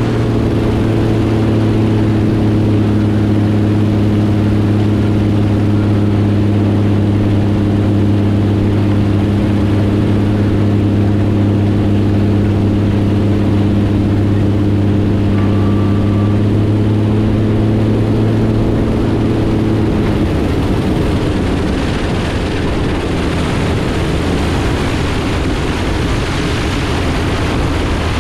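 Helio Courier H-295's geared six-cylinder engine and propeller droning steadily in flight, with heavy wind rush over the outside-mounted microphone. About twenty seconds in the engine's steady tone fades away, leaving mostly rushing airflow.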